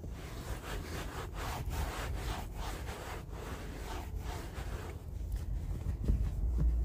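Microfiber rag rubbing briskly over a boat's fiberglass gelcoat in quick back-and-forth strokes, about three a second, easing off after about five seconds. This is the buffing-off of a ceramic coating until no streaks or swirls remain.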